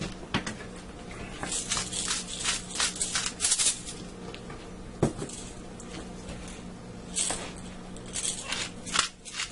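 Salt and pepper being shaken and ground over a pan of cream: quick gritty rasps in two spells, about a second and a half in and again near the end, over a low steady hum.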